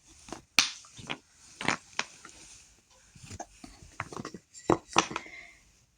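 Chunky wooden puzzle pieces knocking and clattering as they are handled: a dozen or so sharp, irregular knocks.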